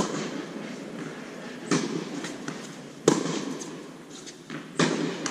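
Tennis ball struck by rackets and bouncing on an indoor hard court: four sharp pops, at the start, near 2 s, about 3 s and near 5 s, the first and third loudest, each echoing in the hall.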